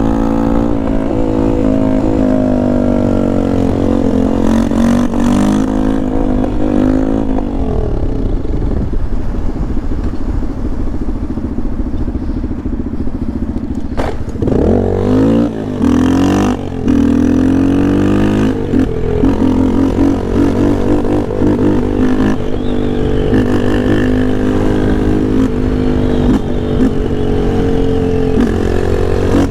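Yamaha Lander 250's single-cylinder four-stroke engine heard from the rider's seat, with wind rumble underneath. The engine note falls as the bike slows during the first several seconds, holds steady, then about halfway through it revs up again with two brief dips as it shifts up through the gears, and settles into cruising.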